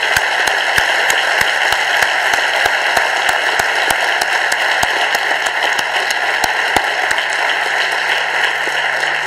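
An audience applauding steadily, with the speaker at the podium clapping along, his individual claps standing out now and then above the applause.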